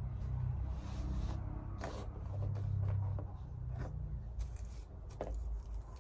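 Light clicks, rubs and scrapes from a clarinet and small repair parts being handled and sorted in a tray, a few separate clicks from about two seconds in, over a steady low hum.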